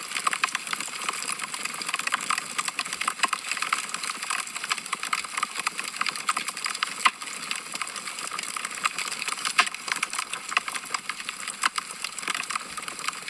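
Wood fire burning in a fireplace, with a dense, irregular crackle of small snaps over a soft hiss and a louder pop now and then.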